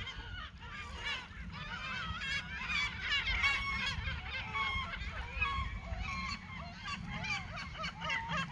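Several seagulls calling over one another in a quick, overlapping chatter of wavering cries, over the low steady wash of a calm sea.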